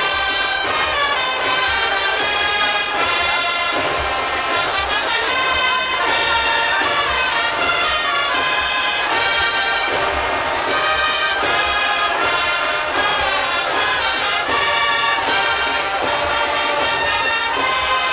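An agrupación musical, a Spanish Holy Week band of cornets, trumpets, trombones and low brass with drums, playing a processional march live: sustained brass melody over a steady, even drum beat.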